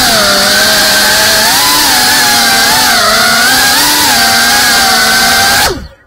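GEPRC Cinelog 35 FPV drone's brushless motors and propellers whining loudly, the pitch dipping and rising a few times with the throttle, then dropping and cutting off abruptly near the end as the motors stop.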